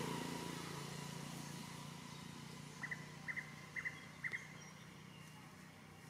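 A motor vehicle running, fading away over the first couple of seconds, then four quick paired high chirps about half a second apart near the middle.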